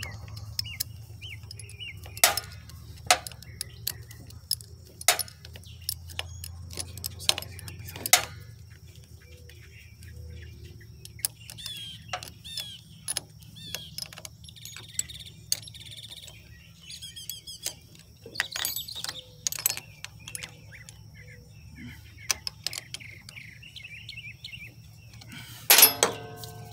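Small steel open-end wrench clicking and clinking against a lawn tractor's battery terminal bolt as the cable is tightened, in scattered sharp taps. Near the end there is a louder clatter of metal tools being handled. Birds chirp faintly in the background over a low steady hum.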